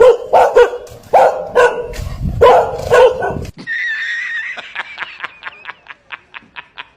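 Dog barks, about six sharp barks in quick succession, cut off suddenly about halfway through. A wavering high tone follows, then a run of short ticks that speed up.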